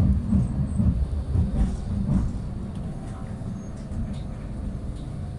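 Tram running: a low rumble that surges and pulses for the first two seconds or so, then settles to a softer, steady rumble.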